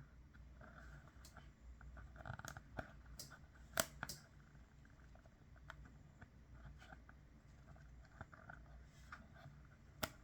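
Faint handling sounds: scattered light clicks and soft rustling, with a sharper click about four seconds in and another near the end.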